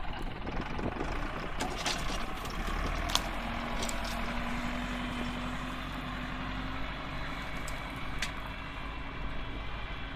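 Fendt 309 LSA tractor's diesel engine running steadily under load while ploughing. A few sharp clicks break through, and a steady whine sits above the engine for a few seconds in the middle.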